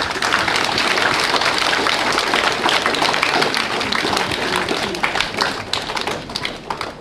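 A crowd of schoolchildren and teachers applauding, a dense patter of many hands that thins out and dies away near the end.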